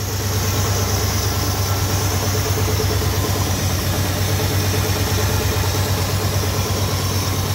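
Chrysler 440 big-block V8 idling steadily while warm, with a soft knock that in person is more of a suction sound. The oil light comes on at idle, and the owner fears low oil pressure from debris blocking the oil pickup.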